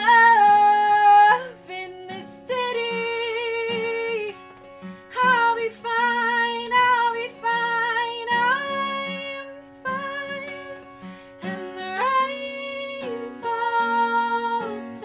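Live acoustic music: female voices singing long, wavering held notes that slide in pitch, over an acoustic guitar. The singing pauses briefly a few times, and near the end two voices sing together.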